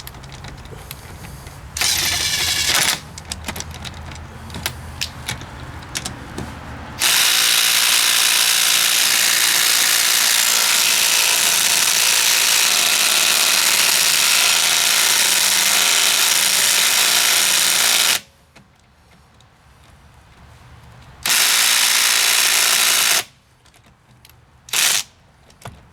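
Ridgid cordless impact wrench hammering on a car's lug nuts in speed 2, at the 100 foot-pound setting. It gives a short burst, then one long run of about eleven seconds, then another short burst and a brief blip near the end.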